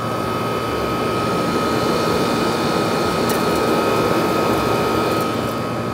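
Late-1960s Westinghouse 23,500 BTU room air conditioner running: a steady rush of fan air over a low hum, with a thin steady whine on top. It grows a little louder in the middle and eases near the end.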